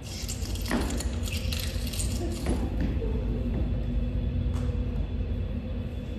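Metallic jingling for the first two seconds or so, over a steady low rumble. A humming tone is held through the middle.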